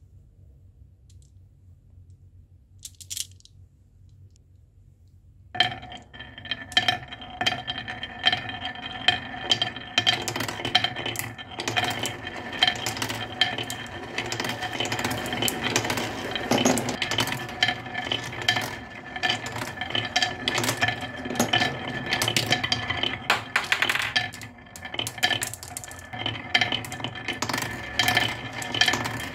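Marbles rolling down a carved wooden serpentine marble-run slope: a continuous rolling sound with many rapid clicks as they knock against the wooden grooves and each other. It sets in about five seconds in, after a single click.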